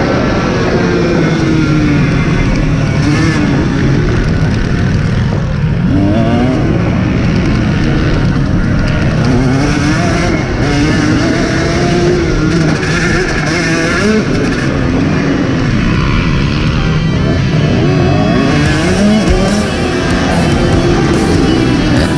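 Motocross dirt bike engine revving hard, its pitch climbing and dropping again and again as the rider works the throttle and gears around the track.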